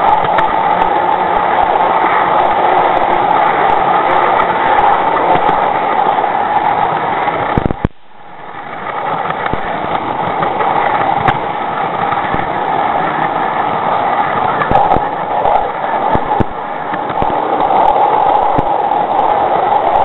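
0 gauge model train running along garden-railway track, heard from a camera riding on the train: a steady running noise from the wheels on the rails. About eight seconds in it briefly drops away, then builds back.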